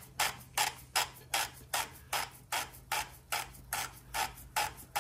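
Oil filter housing cap being screwed down by hand on a 1.8 TFSI engine, giving sharp, evenly spaced clicks about two and a half a second as it threads on.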